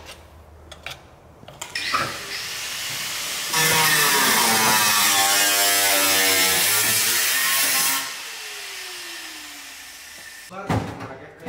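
Angle grinder cutting car-body sheet metal: it spins up, runs loud for about four seconds with its pitch dipping and recovering as the disc bites, then is lifted off and winds down with a falling whine.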